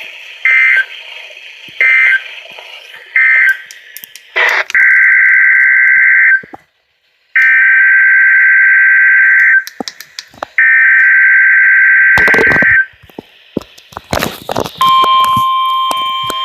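Emergency Alert System SAME digital data tones from a weather radio broadcast: three short, buzzy warbling bursts closing the test, then a click and three longer bursts of the same buzzing data signal with pauses between them. Near the end a steady tone with overtones starts.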